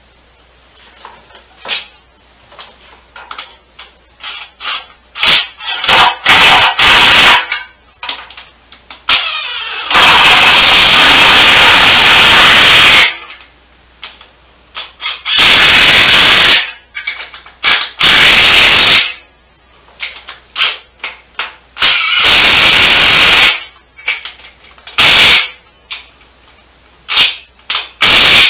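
Power impact wrench running in bursts of one to three seconds, the longest about ten seconds in, with short clicks and knocks of hand tools between. These are the bolts being run in where the 727 transmission's bell housing meets the 360 engine.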